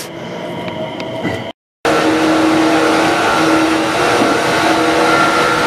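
JR West 225 series electric train running, heard from on board: a steady rumble and hiss with a few steady humming tones. After a short break about one and a half seconds in, the running noise returns much louder.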